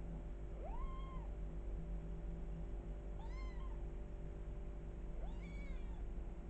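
Kitten meowing three times, about two seconds apart; each meow is a short high call that rises and then falls in pitch.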